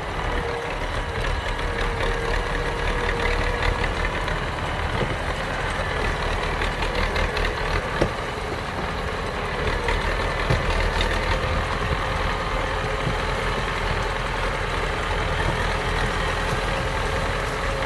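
Belarus tractor's four-cylinder diesel engine running steadily as it pulls a loaded trailer at low speed. A single sharp knock comes about eight seconds in.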